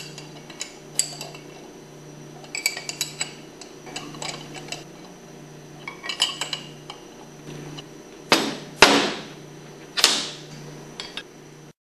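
Metal clicks and clinks of a half-inch wrench tightening the bolts that hold a pump flange to a hydraulic motor, coming in short runs of quick clicks, with a few louder knocks in the second half.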